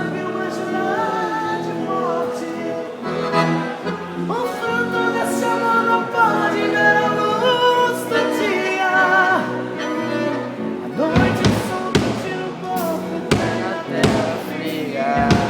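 Live band music: a wavering melody line over held chords, with drum hits coming in about eleven seconds in.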